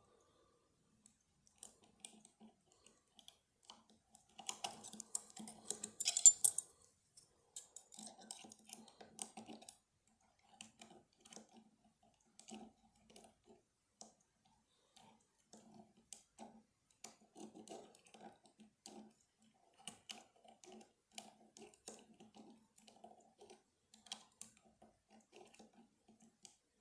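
Lock picks working inside a lever lock: faint, irregular metal clicks and scraping as the levers are manipulated, with a louder rattling flurry about four to six seconds in.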